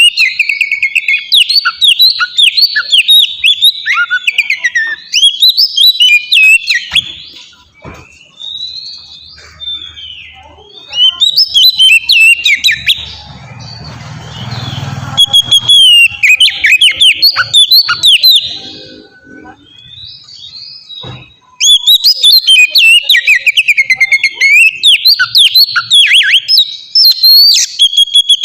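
Oriental magpie-robin (kacer) singing loudly and continuously in rapid bursts of varied whistles, trills and sharp notes, with short pauses between bursts.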